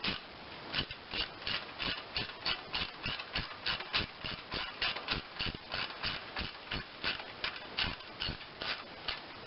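Ratchet wrench clicking in a steady rhythm, about four to five clicks a second, as a bolt is driven back into the engine block.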